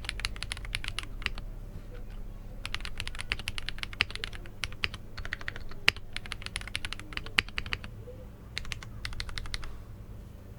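Mechanical keyboard being typed on: a Glorious GMMK Pro with a POM plate and Glorious Panda tactile switches, giving quick runs of key clacks in bursts of about a second, with short pauses between them and a few single louder keystrokes.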